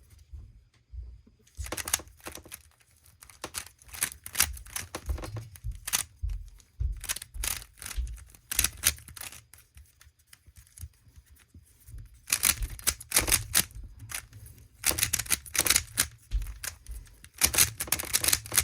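Rubik's Phantom cube being turned fast by hand, its plastic layers clacking in quick runs of clicks with short pauses between turn sequences.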